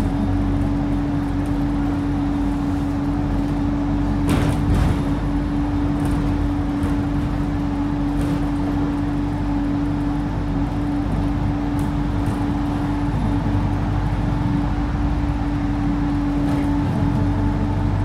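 Alexander Dennis Enviro 200 single-decker bus driving, heard from inside the passenger saloon: engine and road rumble with a steady whine held at one pitch, fading near the end. A brief rattle or knock about four and a half seconds in.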